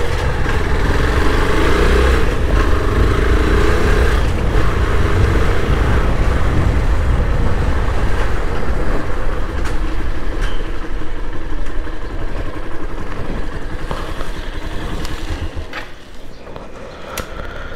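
Motorcycle riding along a busy road: engine running with a steady rumble of wind on the helmet-mounted action camera's microphone, quieter near the end.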